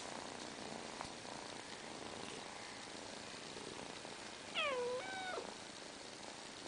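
Cat giving two short mews in quick succession about four and a half seconds in, the first sliding down in pitch and the second dropping away at its end, over a low steady purr.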